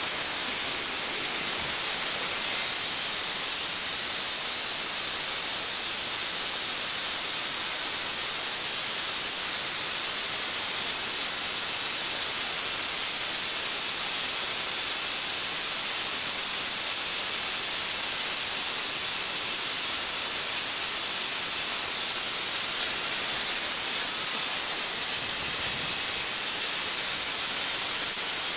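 Homemade spark-gap Tesla coil driven by a ZVS driver and flyback transformer, running with a loud, steady, high-pitched hiss from its spark gap and the arc streaming off its top load. The hiss cuts in suddenly at the start as the coil is switched on.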